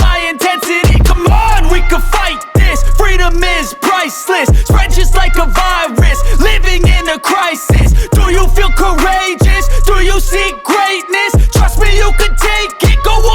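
Hip hop music with a heavy, pulsing bass beat under a bright melodic line that bends in pitch, with no rapped lyrics.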